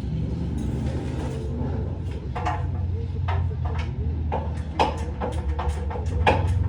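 Steady low drone of a 2004 Honda Civic Si in motion, heard from inside the cabin. From about halfway in there is a run of irregular sharp clicks and knocks, several a second.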